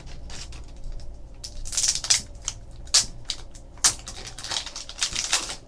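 A trading-card box being opened by hand: plastic wrapping crinkling and tearing, with a run of sharp clicks and taps as the packaging and cards are handled.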